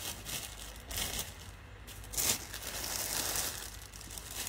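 Clothing fabric rustling and clear plastic packaging crinkling as garments are handled, in a few noisy bursts, the loudest a little over two seconds in.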